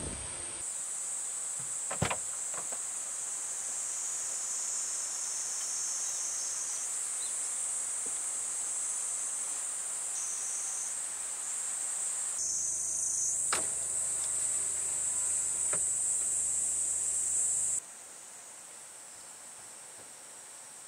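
Summer insects chirring steadily in a high-pitched drone, with a few light knocks and clicks as sunshades are fitted to the car windows; the chirring falls away suddenly near the end.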